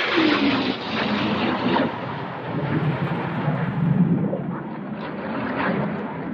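A low-flying military fast jet's engine noise as it passes and draws away, loud and steady, with a tone falling in pitch near the start and the sound easing off toward the end.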